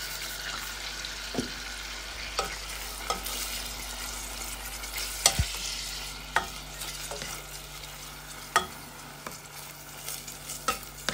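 Beef cubes frying in melted butter in a stainless steel pot, sizzling steadily, while a plastic spoon stirs them, knocking and scraping against the pot at irregular moments, loudest about five seconds in.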